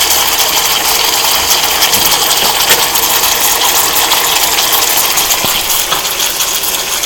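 Marinated fish frying in hot oil in a pan: a loud, steady sizzle with fine crackling all through.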